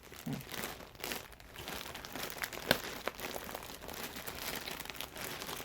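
Packaging crinkling and rustling as plush toys are unpacked and handled, with a sharp click about two and a half seconds in.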